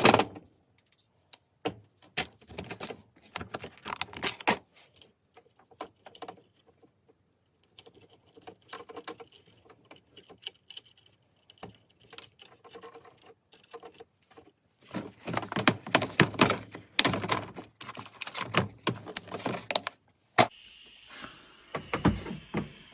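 Small handling noises from working with wires and heat shrink tubing by hand: irregular clicks, taps and rustles, busiest in the second half, with one sharp click near the end. A faint steady hiss starts near the end.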